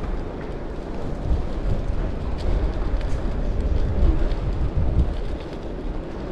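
Wind rumbling on the microphone of a camera riding on a moving bicycle, a low noise that swells and eases.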